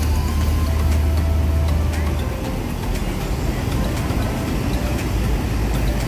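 Mercedes-Benz OH 1626 coach's diesel engine running as the bus pulls away at low speed. It is a deep, steady drone that settles lower about two seconds in.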